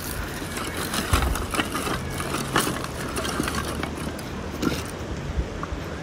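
Light knocks and clatter of split wooden kindling sticks against each other and the stone paving as they are gathered up and one is stood on end, over a steady low rumble.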